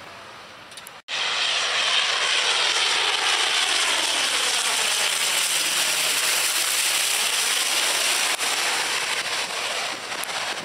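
De Havilland Canada Dash 8 twin-turboprop passing low overhead on final approach, gear down. Its engines and propellers make a loud steady rush with a sweeping, phasing hiss as it goes over. The sound cuts in suddenly about a second in and eases a little near the end.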